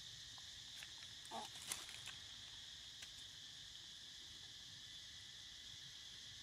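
Steady high-pitched insect chorus, faint and unbroken. About a second and a half in, a short squeak and a few brief clicks stand out.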